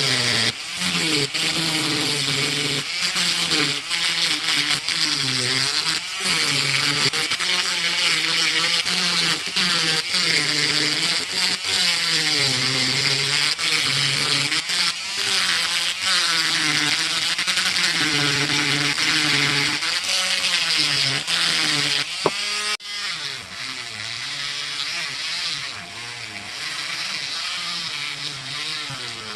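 A small power tool's motor buzzing over a steady hiss, its pitch dipping and recovering again and again as it is pressed against the metal. About three-quarters of the way through it glides, clicks, and carries on quieter.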